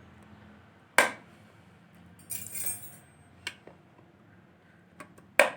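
Chrome-plated metal beaters clinking and clicking as they are pushed into the sockets of a hand mixer: a sharp click about a second in, a short metallic rattle midway, and a loud snap near the end as a beater locks in.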